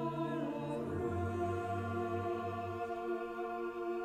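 Choir singing long, held chords in a slow hymn setting; about a second in, the lowest voices move down to a lower note.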